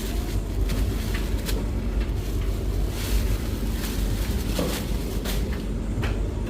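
Laundry being handled, with short irregular rustles of cloth over a steady low rumble.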